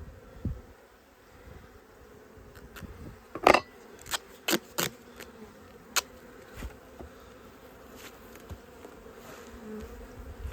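Honeybees buzzing steadily around an open hive, with a few short sharp rips and knocks as duct tape is pried up and pulled with a hive tool, the loudest about a third of the way in.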